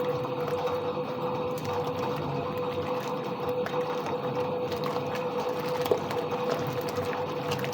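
Soviet washing machine running through a wash. Its motor gives a steady hum over a constant mechanical churning, with a few small clicks.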